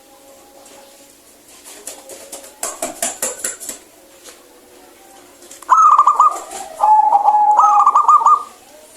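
Zebra dove cooing its rapid, trilled staccato call for about three seconds, starting a little past halfway. A brief rustling burst comes a few seconds before it, with faint cooing in the background.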